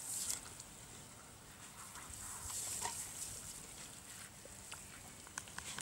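Faint hiss of a garden hose's spray nozzle, with water splashing onto the dogs and grass. Near the end there are a few short clicks and brief squeaks.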